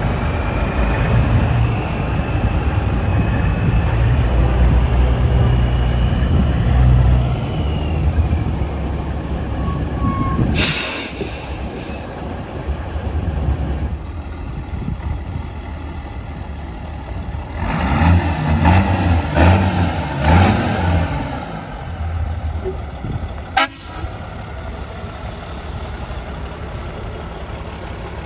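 Semi-truck diesel engines running as trucks pull out. A loud hiss of air lasts about a second, roughly ten seconds in, and an engine revs up and down a few times past the middle.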